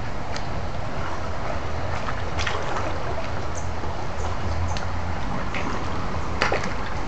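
Electrofishing rig humming steadily while its two probes are swept through a shallow stream pool, with scattered sharp clicks and water splashes, the loudest about six and a half seconds in.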